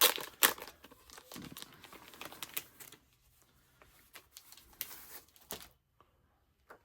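Crinkling and rustling as a vintage comic book is handled and leafed through. There are sharp crackles at the start, then softer rustling with scattered crackles that dies away about two-thirds of the way through.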